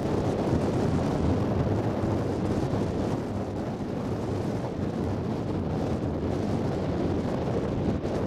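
Strong wind buffeting a camera's microphone in a blizzard: a steady, loud rushing noise.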